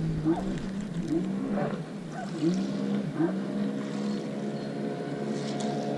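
Motorboat engine running steadily with a low hum, its pitch dipping and rising slightly, with a few short chirps over it.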